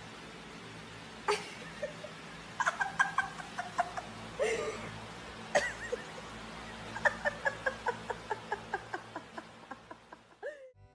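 A person laughing in quick runs of short bursts over the steady hum of an electric floor fan.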